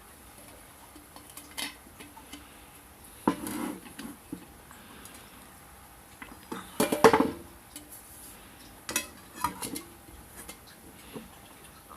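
Light metal objects clinking and clattering as they are handled, in scattered short knocks with the loudest cluster about seven seconds in.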